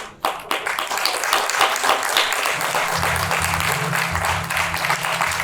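A sharp click, then audience applause; music with a low bass line joins about two and a half seconds in.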